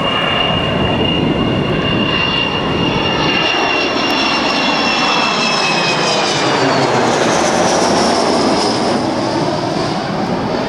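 Avro Vulcan XH558 flying low overhead, its four Rolls-Royce Olympus turbojet engines running with a loud rushing roar and a high whine. The whine drops in pitch about six to seven seconds in as the bomber passes overhead and moves away.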